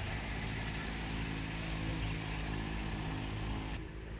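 A steady engine hum with an even, unchanging pitch over outdoor background noise, which cuts off abruptly near the end.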